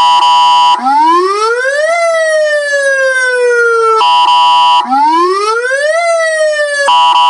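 Loud electronic siren through a 12 V, 200 W siren horn speaker. A short steady horn blast is followed by a wail that rises for about a second and falls slowly over two. The pattern runs twice, and another horn blast comes near the end.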